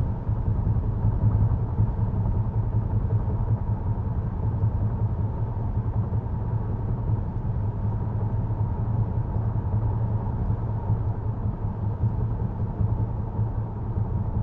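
Road noise inside the cabin of a 2023 Volvo XC90 B5 SUV at cruising speed: a steady low rumble of tyres on pavement with the drivetrain underneath.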